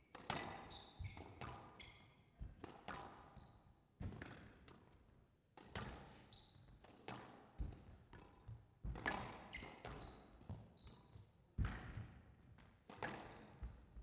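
A squash rally on a glass court: sharp, echoing hits of racket on ball and ball on walls about every second, in an irregular rhythm, with short high squeaks of shoes on the court floor between them.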